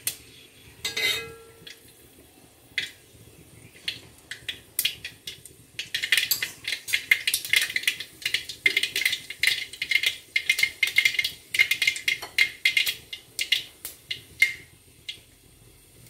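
Mustard seeds popping in hot sunflower oil in a metal pot: a few scattered pops, then a rapid crackle of sharp pops about six seconds in that lasts around nine seconds and thins out near the end. Near the start, a metal spoon clinks against the pot.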